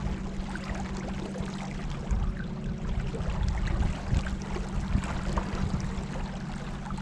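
Water splashing and lapping around a kayak on a river, with small irregular splashes over a steady low hum.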